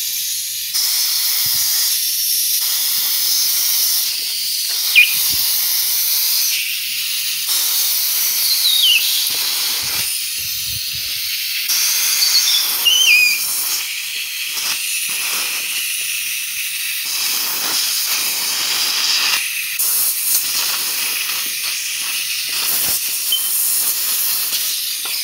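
Compressed air hissing from a blow gun nozzle forced between a rubber handlebar grip and the throttle barrel to blow the grip off, its strength shifting several times, with a few short squeaks mixed in.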